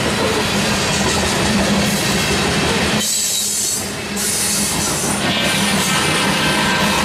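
Covered hopper cars of a freight grain train rolling past close by: the steady rumble and rattle of steel wheels on the rails, thinning briefly about four seconds in.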